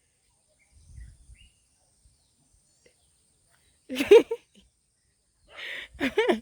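Dog barking: a single short bark about four seconds in, then a fainter sound and another sharp bark near the end.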